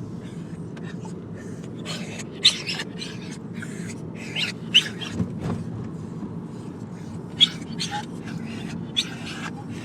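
Excited dogs whining and yelping: a string of short, high-pitched cries with a few sharper, louder yelps. Under them is the steady rumble of a moving car's cabin.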